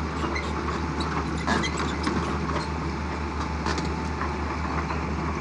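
Excavator diesel engines running steadily as the machines travel, with scattered clicks and clanks.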